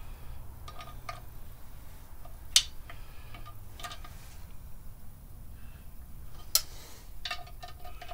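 Socket ratchet clicking in short runs, with a few single sharp metal clicks, as the clutch pressure plate bolts are turned down in stages to draw the pressure plate onto the clutch disc and flywheel.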